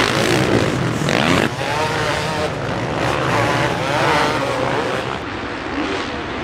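Several motocross bikes racing on a dirt track, their engines revving hard and dropping back as they accelerate out of corners and over jumps, the pitch repeatedly rising and falling.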